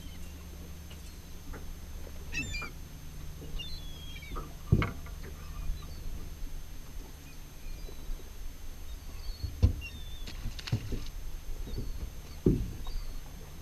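Three sharp knocks on an aluminum boat's deck, about five, ten and twelve seconds in, while an angler fights a hooked fish. Under them runs a steady low hum, with a few faint high chirps.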